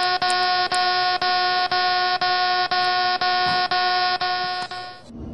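A loud, steady electronic buzzer tone that pulses with brief gaps about twice a second, starts abruptly and cuts off suddenly about five seconds in.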